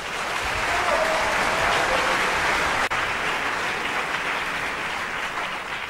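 Applause, a steady even clatter of many hands that dies away near the end.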